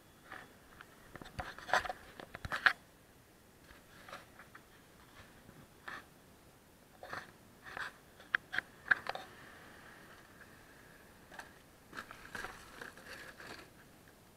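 Footsteps and scuffs on loose gravel and rubble: irregular crunches and sharp clicks, the loudest about two seconds in.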